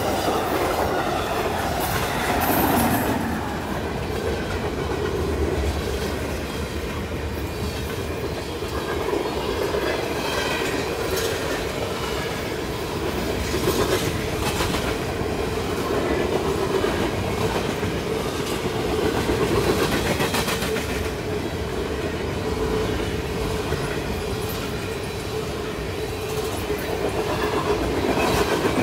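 Long freight train rolling past at a level crossing, its wheels clacking over the rail joints in repeated bursts, over a steady rolling drone with a constant tone in it.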